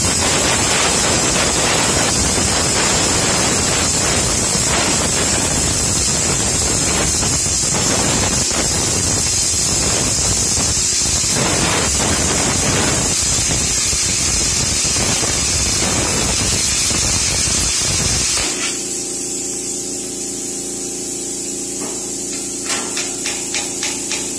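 Self-blowing plasma cutter (Taiwan Power CUT40B) cutting through thick steel: a loud, steady hiss of air and arc that stops abruptly about eighteen seconds in. A quieter steady hum is left after the arc stops, and near the end there is a row of light knocks, about two to three a second.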